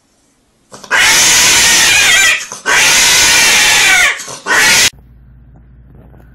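A cat screaming during mating as the male mounts her: three very loud, drawn-out yowls with a wavering pitch, the last one short and cut off about five seconds in.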